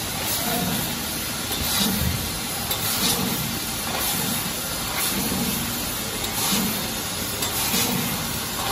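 CNC laser cutting machine at work: a steady hiss under a soft low throb that recurs roughly once a second.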